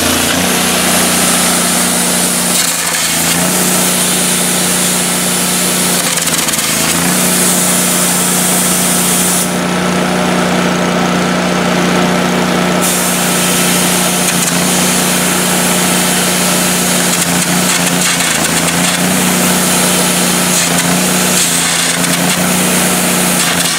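Miller Trailblazer 302 Air Pak engine-driven welder running at a steady drone under load, with the continuous crackle and hiss of a welding arc on steel. The arc stops for about three seconds midway, then strikes again.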